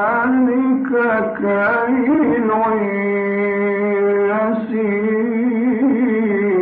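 A man's voice reciting the Quran in melodic tajweed style, drawing out long held notes with ornamented turns in pitch.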